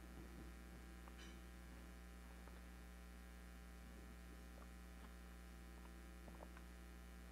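Near silence: a steady low electrical mains hum, with a few faint small clicks.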